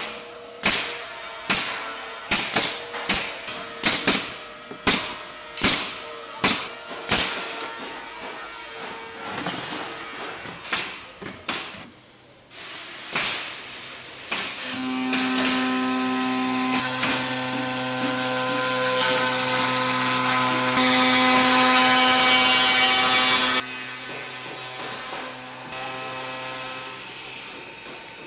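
Pneumatic coil nailers firing nails into the boards of a round wooden disc, one sharp shot about every half second, for about twelve seconds. Then a woodworking machine runs with a steady hum while its cutter machines the disc, loudest for about three seconds before dropping back.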